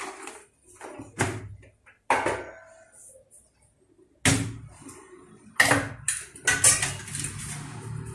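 Stainless-steel plates and bowls being picked up and set down: several separate knocks and clinks, each ringing briefly, a second or so apart. A low steady hum comes in near the end.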